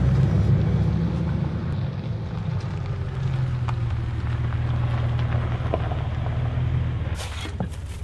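Jeep Wrangler engine running steadily at low revs, easing off about seven seconds in.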